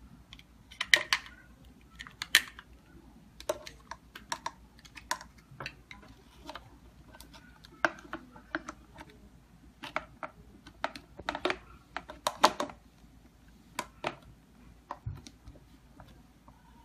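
Irregular clicks, taps and knocks of an HFAS100BRM keypad deadbolt's interior back panel and battery housing being handled and fitted back onto a door.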